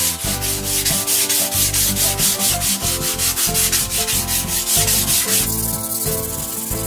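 Sandpaper rubbed back and forth over a foam airframe part in quick, even strokes, several a second, stopping near the end, over background music.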